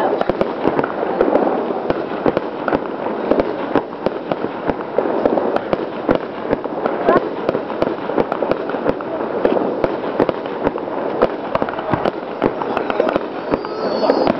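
Aerial fireworks display: shells bursting in a rapid, continuous series of bangs, many a second.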